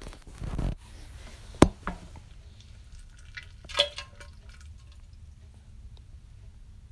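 A short, low fart about half a second in, then a sharp click. Near four seconds in comes a cluster of small wet clicks and drips with a brief ring.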